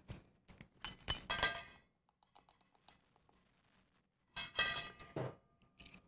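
A metal measuring spoon clinking against a stainless steel mixing bowl in two short bursts, about a second in and again about four and a half seconds in, with the bowl ringing briefly after each, as cinnamon is spooned in.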